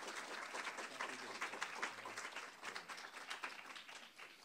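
Audience applauding, with the clapping dying away near the end.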